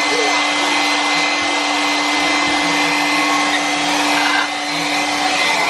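Hand-held hair dryer blowing steadily, used to dry a pet bird after its bath.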